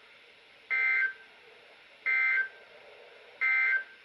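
Three short bursts of warbling two-tone SAME digital data from a NOAA Weather Radio broadcast, each lasting under half a second with about a second of hiss between them. These are the End of Message data bursts that close the weekly test broadcast, heard through a weather radio's speaker.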